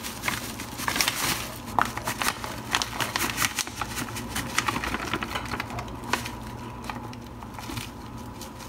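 Brownie mix pouch crinkling and crackling as it is shaken and the dry mix is tipped out into a plastic container: a quick run of crackles and light taps that thins out in the second half.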